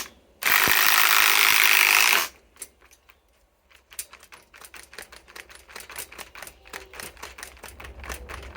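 Ryobi PSBIW25 compact impact wrench hammering a 5/16 by 3 inch galvanized lag screw into wood: a short stop, then a burst of about two seconds that cuts off sharply. Afterwards a long run of light, irregular clicks.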